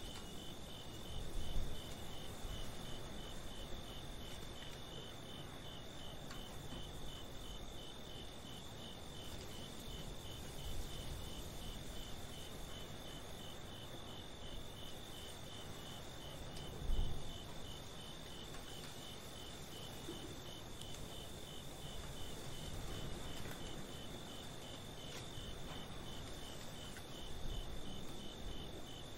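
Crickets chirping in a steady, evenly pulsed trill through a night ambience, over a low rumbling background that swells briefly twice, near the start and again about halfway.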